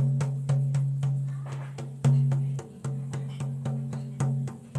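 Large hide frame drum struck by hand in a steady, even beat of about three to four strokes a second, each stroke leaving a low ringing tone; one stroke about two seconds in is louder. It is the steady drumbeat of a shamanic journey.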